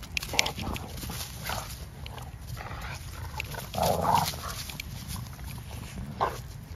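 Two American Bully dogs playing tug-of-war over a rope toy: dog vocal noises mixed with scuffling, the loudest about four seconds in and a shorter one just after six.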